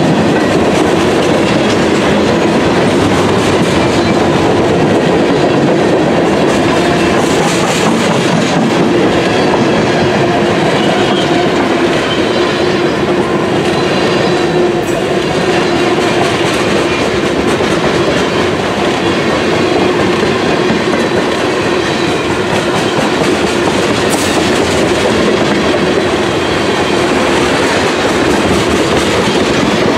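Freight train cars (tank cars and covered hoppers) rolling past close by: a steady, loud rumble and clatter of steel wheels on the rails.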